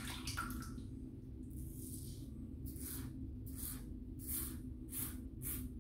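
Pearl Flexi adjustable safety razor scraping lathered stubble off the neck in short strokes, about three a second, over a steady low hum.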